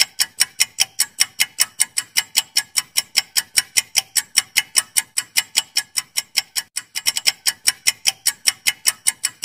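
Countdown-timer ticking sound effect: rapid, even clock-like ticks, about five a second, marking the time allowed to answer.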